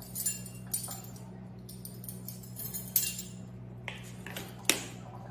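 Ring of metal measuring spoons jangling and clinking while a spice shaker is handled to measure out garlic powder, with two sharp clicks, one about three seconds in and one near the end. A low steady hum runs underneath.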